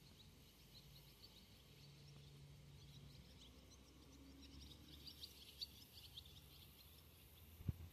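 Near silence: faint outdoor ambience, with a scatter of faint, high bird chirps from about halfway through.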